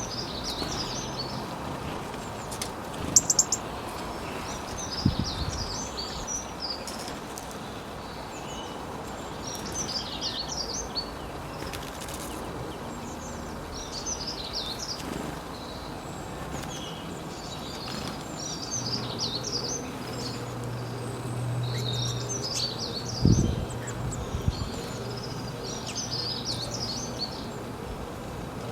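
A songbird singing short chirping phrases about every two seconds over steady background noise. A few dull knocks, around 3, 5 and 23 seconds, are the loudest moments, and a low hum sets in around two-thirds of the way through.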